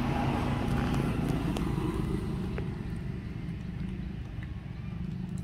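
An engine running steadily, a low hum that holds one pitch, with a few faint light clicks over it.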